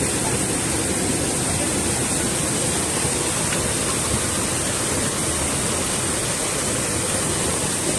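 Steady rushing of river water, an even hiss with no breaks.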